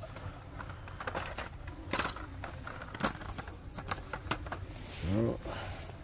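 Plastic blister-packed die-cast car cards clicking and clacking against one another and the metal display pegs as a hand flips through them. The clicks are short and irregular.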